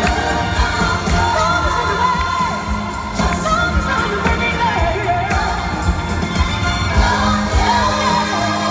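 Live pop band music in an arena, recorded from among the audience: drums keep a steady beat under a wavering lead melody.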